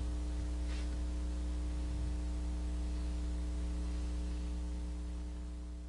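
Steady electrical mains hum with a faint hiss, dropping slightly in level near the end.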